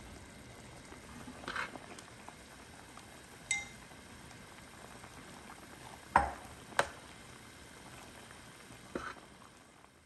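Pot of jjamppong soup simmering with a steady faint bubbling, while a metal spoon clinks against dishes about five times; the loudest knock comes about six seconds in, and one clink at about three and a half seconds rings briefly.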